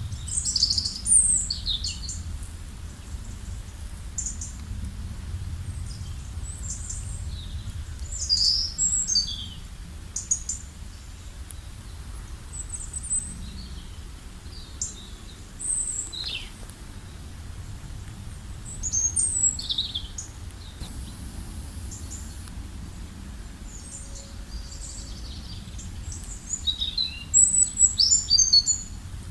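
Several small birds chirping and calling in short, quick bursts, with a dense flurry of chirps near the end, over a steady low rumble.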